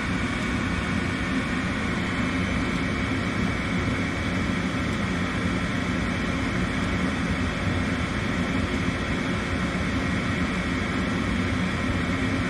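Gas furnace draft inducer motor running steadily with a thin, constant whine, during the ignition stage of the furnace's start-up cycle while the igniter heats and before the gas valve opens.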